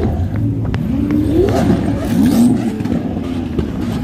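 Car engine revving, its pitch sweeping up twice in quick blips about a second apart, over a steady rumble of other idling engines.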